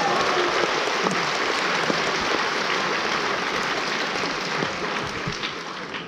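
A large hall audience applauding, a dense patter of many hands that slowly dies down near the end.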